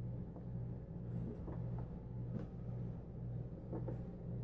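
A steady low mechanical hum that swells and dips at an even beat, about three swells every two seconds, with a few faint, soft ticks over it.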